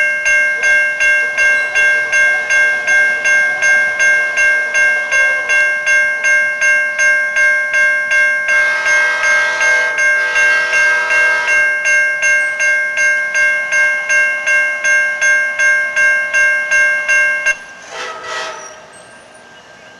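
Railroad grade-crossing warning bell ringing at a steady, rapid beat of about three strikes a second, then cutting off suddenly near the end. For about three seconds midway a louder, noisier sound joins it.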